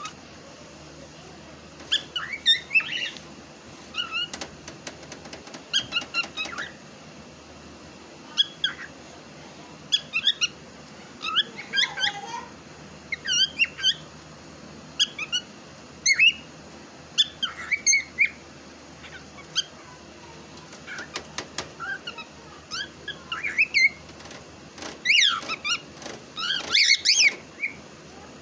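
Cockatiel chirping and squeaking in short bursts of quick calls every second or two, busiest and loudest near the end.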